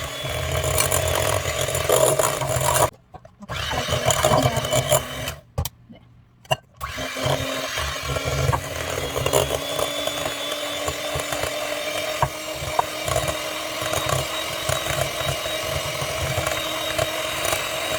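Electric hand mixer running, beating eggs into the sugar-and-oil batter. It cuts out briefly about three seconds in, and again for about a second around six seconds, then runs steadily.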